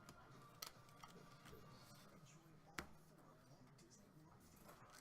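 Near silence: room tone with a few faint clicks, the sharpest about three seconds in.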